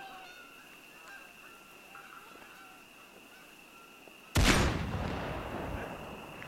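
A single loud sniper rifle shot about four seconds in, with an echoing tail that dies away over a second or two. Before it there is a steady high tone with short faint calls.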